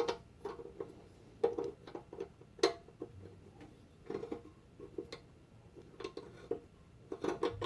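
Propane hose fitting being screwed onto the back of an annealer's torch nozzle: scattered light metallic clicks and taps, about a dozen spread irregularly.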